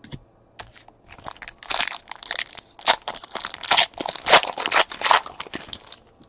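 Foil baseball-card pack crinkling and tearing as it is ripped open by hand: dense crackling that starts about a second in and stops near the end.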